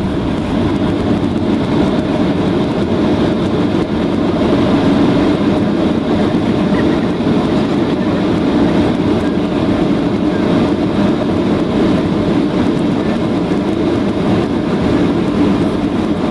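Boeing 737-700 heard from inside the cabin during the landing: a loud, steady rumble of its CFM56 engines and the aircraft rolling on the runway. It builds just at the start and eases off at the very end.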